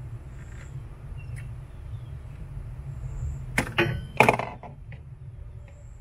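Screwdriver prying the thermistor's mounting clip off the inside wall of a wine cooler cabinet: two short sharp clicks and rattles about three and a half and four seconds in as the clip comes loose, over a steady low background rumble.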